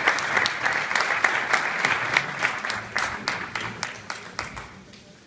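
Audience applauding: dense clapping that thins out over the last couple of seconds and dies away.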